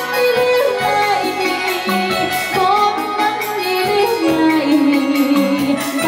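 Music: a song with a singing voice over repeated bass notes, a steady beat and plucked strings.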